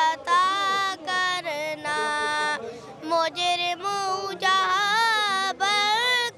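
A young boy singing a naat (devotional Urdu song) solo and unaccompanied, in long held, wavering notes with short breaths between phrases.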